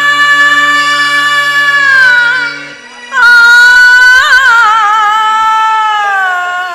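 Live accompaniment music for a Kannada mythological stage play: a high melody in long held notes with quick ornaments, over a steady low drone. The melody breaks off briefly about three seconds in, then sinks in pitch and fades near the end.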